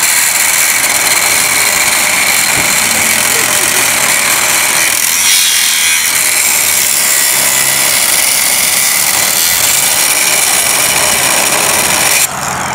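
Small cordless angle grinder running steadily with its cut-off wheel held against a metal light pole, making little headway through the metal. It stops abruptly near the end.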